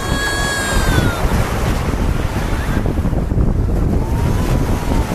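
Wind buffeting the microphone over the wash of small surf breaking on a sandy Sea of Azov beach. Two faint distant calls come through, one at the start and one near the end.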